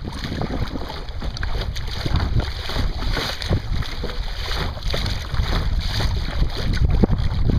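Wind buffeting the microphone in a low rumble, over a steady hiss of small waves and short splashes of water against a kayak hull as it moves across choppy water.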